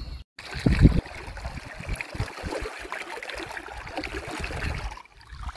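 River water splashing and gurgling as a hand is dragged through it beside a canoe, a continuous run of small splashes that stops about five seconds in.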